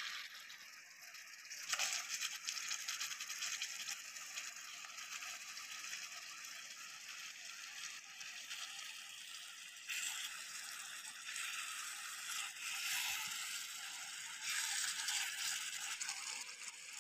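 Curry gravy sizzling in a frying pan on a portable gas camping stove: a steady, fine crackling hiss. It grows louder for a while about two seconds in and again from about ten seconds, as paneer cubes are stirred into it with a ladle.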